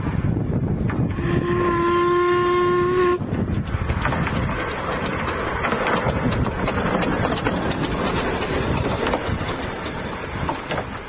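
Narrow-gauge steam locomotive's whistle: one steady blast of about two seconds, starting a little over a second in. Then the locomotive runs past close by, with wind buffeting the microphone.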